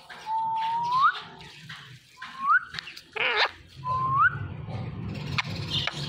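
Green ringneck parrot (rose-ringed parakeet) whistling: three rising whistles, the first long and the others short, with a short harsh squawk about three seconds in.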